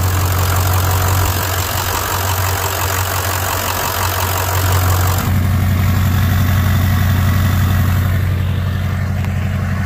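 Ford 6.0 Power Stroke V8 turbo diesel idling steadily, freshly started after an oil change and fuel filter change and left running to circulate the new oil and check for leaks. About five seconds in the sound turns deeper and less hissy as it is heard from the exhaust tip.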